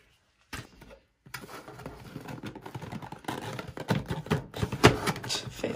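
Cardboard camera box and its paper inserts being handled: rustling, scraping and light clicks and knocks as a hand works inside the box. The sound starts after about a second of near silence and grows louder towards the end.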